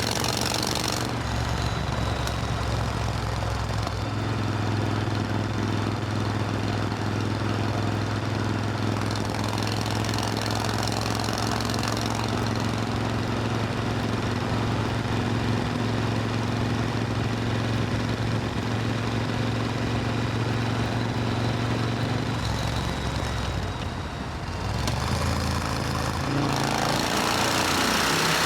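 Supercharged Triumph Thunderbird Storm parallel-twin engine running steadily under way, its note holding for long stretches and shifting a few times, with the engine changing pitch about three quarters of the way through and a rushing noise growing louder near the end.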